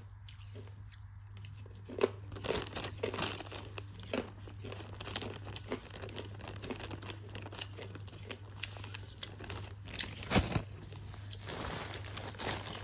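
Plastic packaging bag being handled and torn open, a dense, irregular crinkling and crackling that starts about two seconds in.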